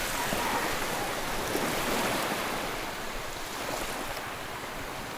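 Ocean surf washing onto a beach: a steady rushing hiss that swells slightly and eases off, with some wind.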